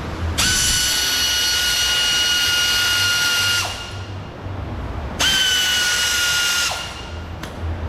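Power drill whining as it backs out screws from the door's lock mechanism, in two runs: a long one of about three seconds, then a shorter one of about a second and a half, each starting and stopping abruptly at a steady pitch.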